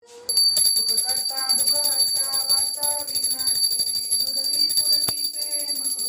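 Devotional aarti singing with a small hand bell rung steadily and continuously over it. The sound starts abruptly at the very beginning.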